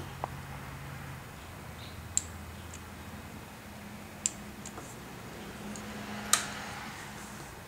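A handful of sharp, irregularly spaced clicks from a 2009 Honda CBR600RR that won't start, the loudest about six seconds in, over a low steady hum that drops in pitch about a second in.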